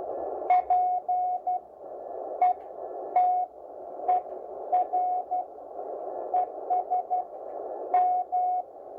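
Morse code on the 40-metre amateur band: a steady tone of about 700 Hz keyed in dots and dashes over a constant hiss of band noise. A sharp click marks the start of many characters.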